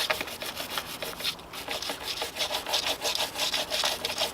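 A small wire brush scrubbing corrosion off a battery terminal connection in quick back-and-forth strokes, several a second.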